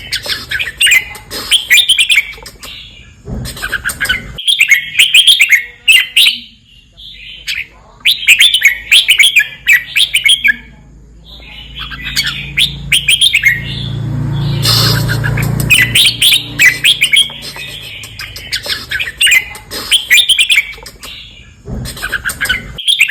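Red-whiskered bulbul singing: quick, bright chirping phrases repeated in bursts with short pauses between them. About two-thirds of the way through, a rushing noise swells for a couple of seconds under the song.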